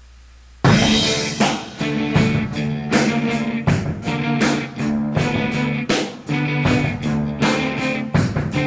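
Guitar-driven rock music with a steady drum beat, starting suddenly about half a second in after a faint low hum.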